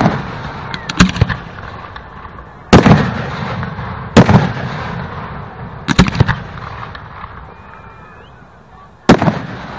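Aerial fireworks shells bursting: about five loud booms a second or two apart, some as quick double or triple cracks, each followed by a long rolling echo.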